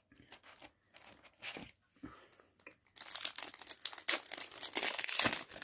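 Foil Yu-Gi-Oh! booster pack wrapper crinkling and tearing as it is opened: a few light handling clicks, then dense crackling from about three seconds in.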